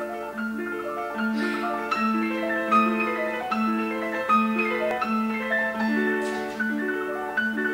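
Instrumental music: a low note repeated steadily under a moving pattern of bell-like keyboard or mallet notes.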